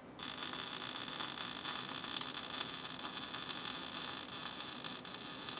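MIG welding arc laying a seam weld on the old sheet-steel chassis of a Porsche 912E: a steady, even crackling hiss that starts a moment in and runs on without a break.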